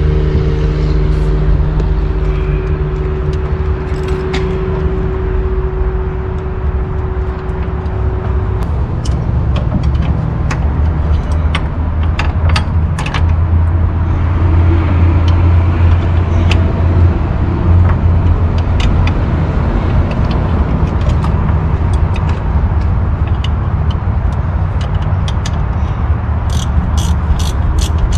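A loud, steady low machine drone, with a few steady tones that drop out about a third of the way through. Over it come short metallic clicks and clinks of hand tools on a fitting, in clusters, with a quick run of them near the end.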